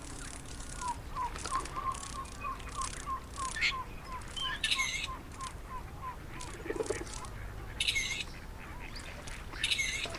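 Birdsong ambience: one bird repeats a short chirp about three or four times a second for several seconds. Three brief, harsh squawking calls come near the middle and end, over frequent sharp ticks.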